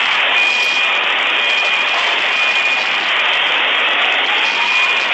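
Aftermath of a large street bomb blast: a loud, steady rushing noise, with a high alarm tone beeping over it about once a second.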